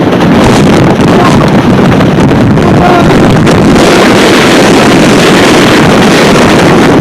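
Strong blizzard wind gusts blasting the microphone: a loud, unbroken rushing roar.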